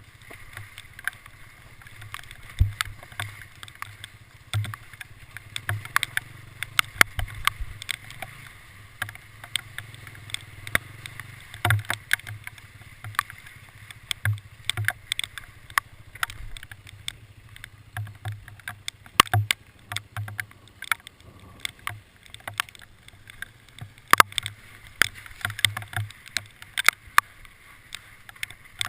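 Hailstones striking a vehicle: many sharp, irregular ticks and clicks, several a second, over a steady low hum.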